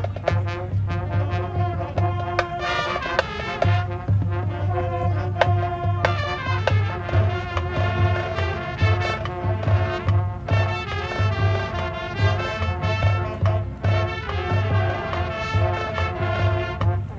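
Marching band playing: brass melody and chords over a steady beat of bass drums and low brass pulsing about twice a second.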